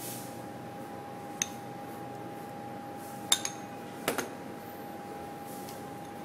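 Four sharp clinks of a small ceramic bowl and utensils knocking against stainless steel mixing bowls, the loudest about three seconds in and a quick pair a second later, over a steady background hum.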